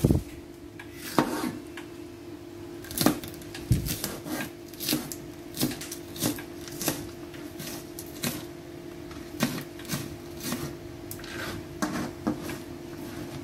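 Kitchen knife chopping green bell pepper on a plastic cutting board: a string of sharp, uneven knocks, about one or two a second.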